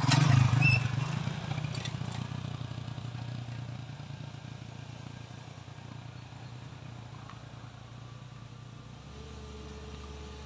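Small motorcycle engine running with a fast putter, loudest at the start and fading away. Near the end a car's engine hum comes in as the car approaches.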